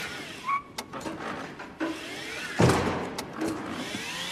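Small electric cart's motor whining, its pitch gliding up and down, with a loud bump about two and a half seconds in and a few lighter clicks before it.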